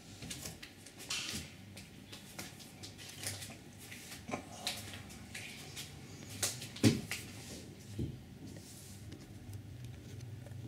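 Scattered light clicks, rustles and knocks of a handheld camera being moved and handled, with one sharper thump about seven seconds in, over a faint steady hum.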